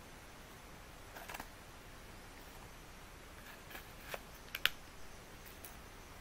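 Newly lit campfire catching, giving a few scattered sharp crackles and pops, the loudest just past the middle.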